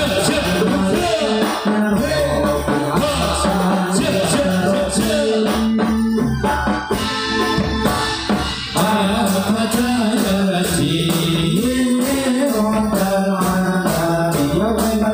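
Music for an angguk folk dance: singing over drums and jingling tambourine-like percussion, continuing steadily.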